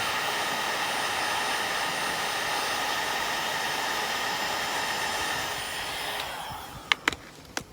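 Hot-air blower running steadily, warming ABS plastic trim, then winding down about six seconds in, followed by two sharp clicks near the end.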